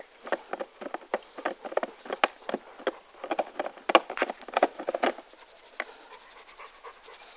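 Rapid, irregular patter of light clicks and scratches, several a second, thinning out about five seconds in.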